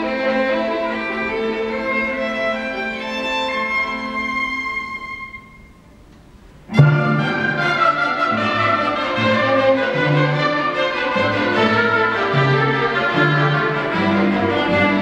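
Student symphony orchestra playing, led by violins and cellos. About five seconds in the music dies away to a brief hush, then the full orchestra comes back in with a sudden loud accented attack and carries on with strong low notes.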